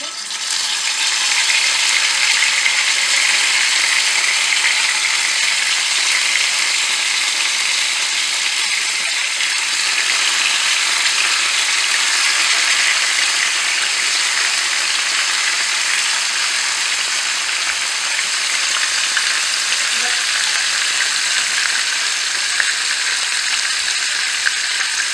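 Whole koi (climbing perch) frying in hot mustard oil in a frying pan: a loud, steady sizzle that rises sharply as the fish go into the oil.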